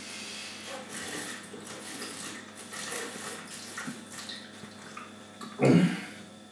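A man drinking from a bottle in long swigs, the liquid moving in the bottle as he drinks. A short louder sound comes near the end.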